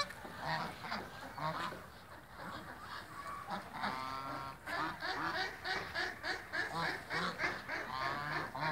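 Flock of white domestic geese honking, many short calls overlapping and coming thicker in the second half. A short sharp click right at the start.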